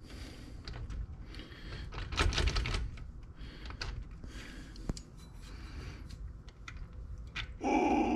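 Light metallic clicks, taps and scraping as hands work a bolt and spacer on an LS engine's accessory bracket in a cramped spot behind the crank pulley, with a louder bump about two seconds in. A short grunt, falling in pitch, near the end.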